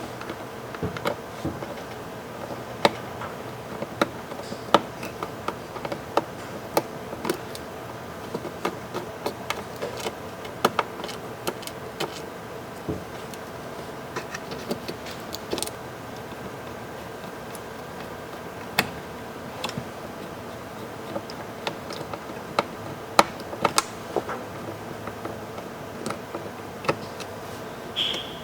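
Irregular clicks and taps of plastic parts being handled and pressed into place as a keyboard bezel is refitted on a Panasonic Toughbook CF-30, over a steady low hum.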